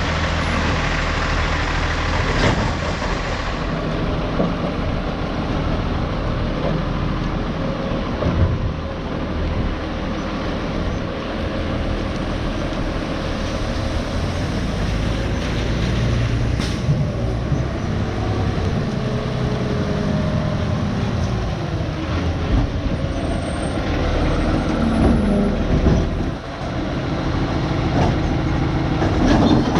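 Autocar Labrie Automizer split-body garbage truck running, its engine droning steadily, with a couple of sharp knocks.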